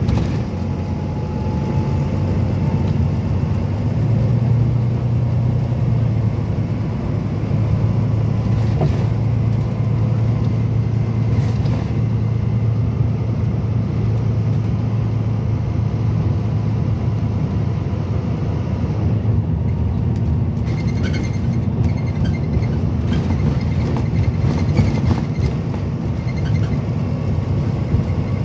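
Volvo B9TL double-decker bus on the move, heard from inside the passenger saloon: a steady low drone from its six-cylinder diesel engine and running gear. Short clicks and rattles come through in the second half.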